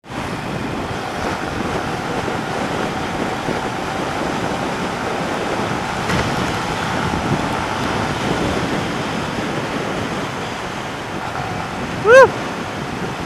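Steady rush of wind over the microphone of a camera mounted on a moving motorcycle. About twelve seconds in comes one short, loud, high-pitched sound that rises and falls in pitch.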